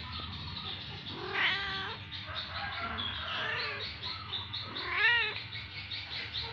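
Kittens meowing while they wrestle: a drawn-out call about a second and a half in, softer calls around three seconds, and a loud short yowl about five seconds in.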